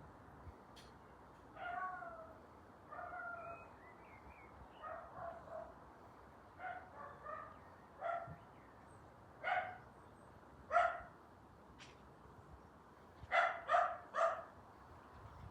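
A pet's short, high-pitched cries, about a dozen, each under half a second and some in quick runs of two or three, made in its sleep.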